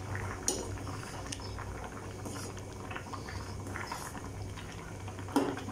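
Pot of rice, toor dal and vegetables bubbling at a boil, with scattered small clicks as a metal ladle stirs it, and a short knock near the end.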